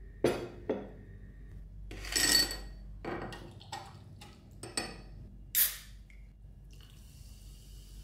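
Kitchen dishes and utensils being handled: a string of separate clinks and knocks, one about two seconds in with a brief ringing tone, and a short scrape a little after five seconds.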